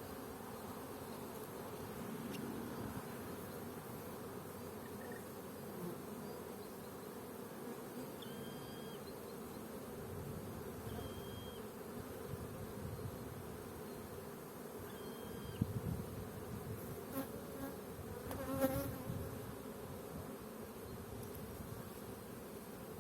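Honeybees buzzing steadily around a hive. A few short knocks come about two-thirds of the way in.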